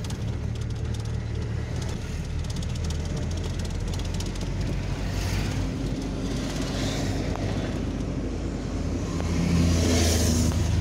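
Road noise inside a moving car: a steady rumble of engine and tyres, growing somewhat louder near the end.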